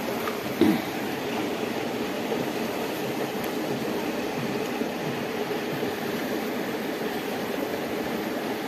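Steady rushing of a fast-flowing river, with a brief knock a little over half a second in.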